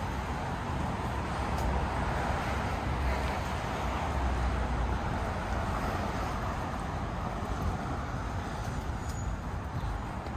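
City street traffic: a car passing, its tyre and engine noise swelling and fading.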